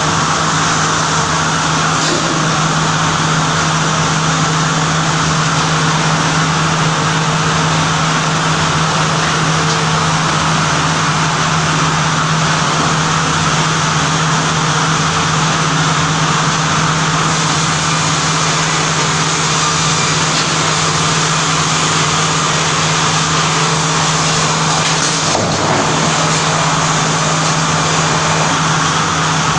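Multi rip saw running steadily: a constant motor hum under a loud, even machine noise that holds unchanged throughout.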